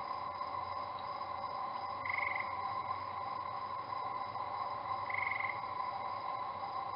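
A steady, layered drone of several held tones, with a short pulsed trill, higher in pitch, that comes twice, about three seconds apart; the uploader calls it a strange, spooky noise.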